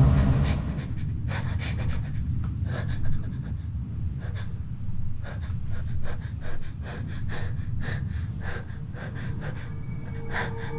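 A person panting, with quick breaths in and out at an uneven pace, over a low steady drone.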